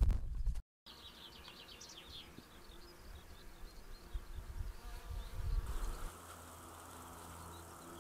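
Summer countryside ambience with insects buzzing. A low wind rumble on the microphone cuts off sharply in the first second, and a quick run of short high chirps follows about a second in.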